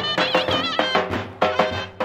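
Turkish davul bass drums beaten in a lively dance rhythm, with a reed wind instrument playing an ornamented folk melody over them.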